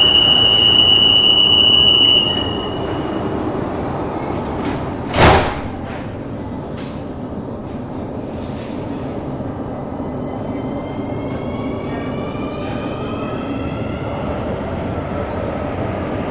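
Inside the car of an Alstom AS-14 metro train at a station: a steady high door-warning tone sounds for about two seconds, then a loud thud about five seconds in as the doors shut. The train then pulls away, its electric traction motors giving a rising whine over the running rumble.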